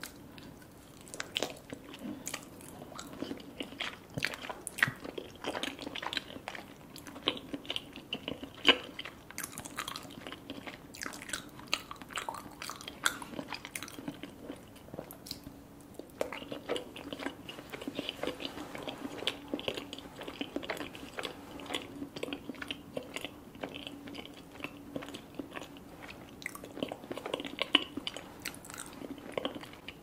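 Close-miked eating of a soft, syrup-soaked dessert ball: a bite, then wet chewing with many small mouth clicks, pausing briefly about halfway before the chewing resumes. A faint steady low hum runs underneath.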